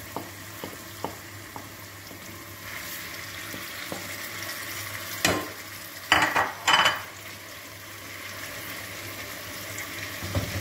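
Green beans and meat sizzling as they fry with pepper paste in a stainless steel pot, stirred with a wooden spoon. A few light taps of the spoon come at the start, and three louder scrapes of the spoon in the pot come between about five and seven seconds in.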